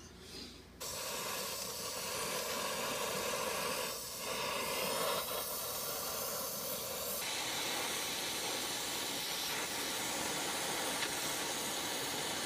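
Brazing torch flame hissing steadily as copper refrigerant tubing is brazed onto a compressor's fittings. The hiss starts abruptly about a second in and changes in tone about seven seconds in.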